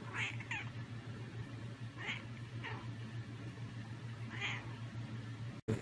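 Domestic cat meowing five times in short calls, the first two close together, demanding to be fed.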